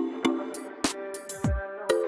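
Electronic music with deep kick-drum hits that drop in pitch and sustained chords.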